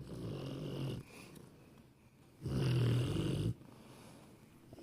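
A sleeping pet snoring: two snores about a second long, the second one louder.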